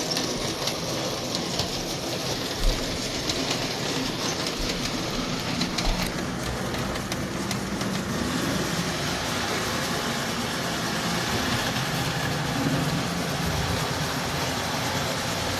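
O gauge model train locomotive running on its track at full throttle, a steady electric-motor whir with the wheels rolling over the rails. It is running poorly, a sign that something is wrong with the engine.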